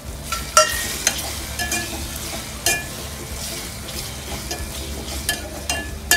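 Marinated prawns sizzling as they fry in hot oil with onion and tomato in a metal pot, while a spatula stirs them and knocks and scrapes against the pot now and then, loudest about half a second in.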